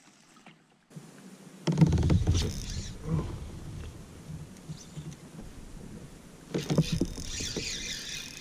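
Wind rumbling on the microphone mixed with fishing handling noise from the kayak. Near the end, the spinning reel is cranked while a small bass is hooked and played on a bent rod.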